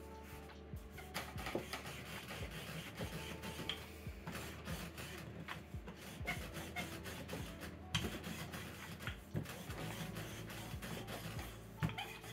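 Wooden rolling pin rolling dough out on a floured wooden board: repeated rolling and rubbing with many small knocks as the pin is pushed back and forth. Faint background music underneath.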